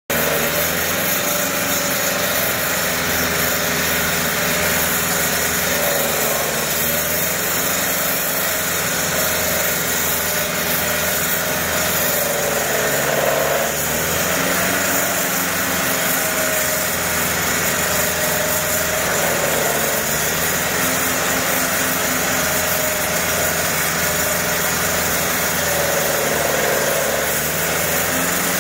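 Walk-behind concrete floor saw wet-cutting a concrete slab: its engine runs steadily under load while the blade grinds through the concrete, making a constant drone with a harsh cutting hiss over it.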